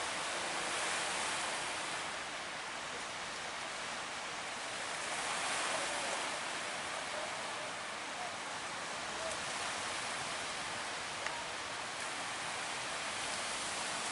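Surf washing and breaking: a steady rushing of water that swells gently a couple of times.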